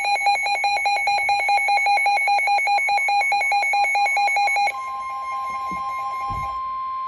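A weather radio's alert alarm beeping rapidly, about ten beeps a second, signalling a warning. About four and a half seconds in the beeping drops away and the NOAA Weather Radio 1050 Hz warning alarm tone continues as one steady tone.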